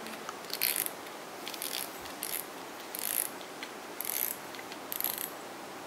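Daiwa Crosscast 5500 spinning reel's mechanism clicking and ratcheting as it is worked by hand, in six short bursts about once a second.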